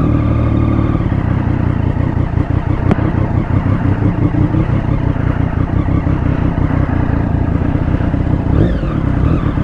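Triumph Daytona 675's three-cylinder engine running at steady revs while the bike is ridden slowly.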